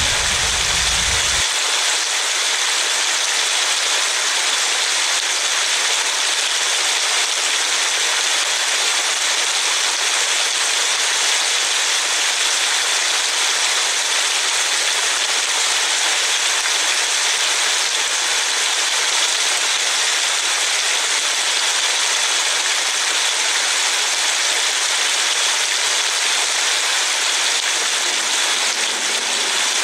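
Steady rain falling, a continuous even hiss. A low rumble underneath stops suddenly about a second and a half in.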